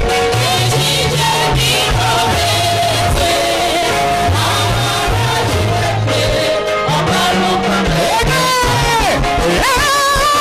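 Live church worship music: a bass line stepping between notes, with keyboard and voices singing held notes. About eight seconds in, one high note slides down in pitch.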